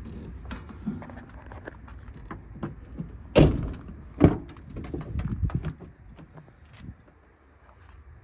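Cab doors of a 2004 International DuraStar 4300 crew-cab truck: two loud thunks about a second apart as a door is shut, then a run of clicks and rattles as the rear crew-cab door is unlatched and swung open.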